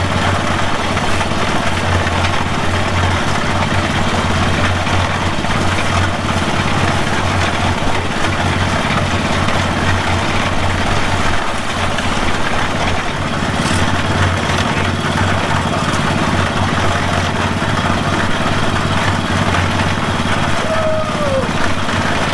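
Small engine running steadily at a constant speed, with an even low hum.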